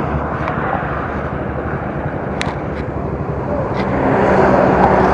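Royal Enfield Classic single-cylinder motorcycle engine idling, with a steady low beat and a rushing noise over it. It gets louder about four seconds in.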